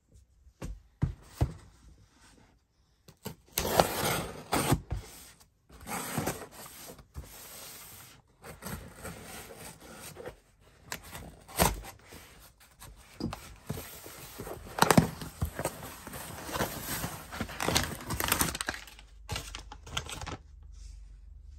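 A cardboard shipping box being handled and opened by hand: packing tape peeled and torn and cardboard flaps scraping, in irregular bursts with sharp knocks and clicks.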